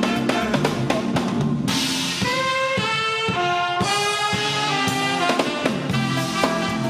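Live soul-jazz band playing a funk groove: a drum kit keeps a steady beat on snare and bass drum under a bass line. The horn section of saxophones and trumpet comes in about two seconds in and holds long chord notes until near the end.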